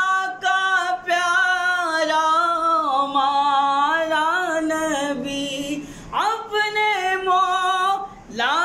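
A man singing an Urdu naat unaccompanied, holding long wavering, ornamented notes. About six seconds in his voice breaks off and swoops up into a new long note, and it does so again near the end.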